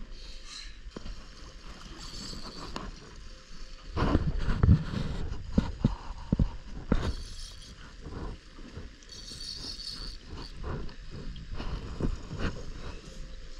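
Wind buffeting the microphone on an open fishing boat, strongest in a gust about four seconds in, with scattered short knocks.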